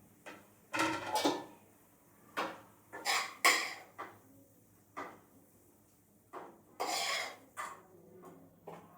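Dishes and utensils being handled: a series of about a dozen short clinks and clatters at uneven intervals.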